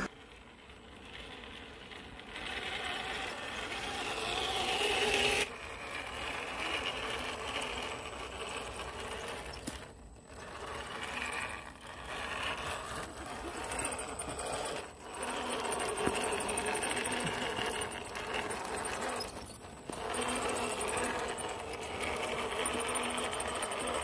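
Traxxas TRX4 RC crawler's electric motor and geared drivetrain whining as it crawls over rock, the pitch rising and falling with the throttle and dropping out briefly three times.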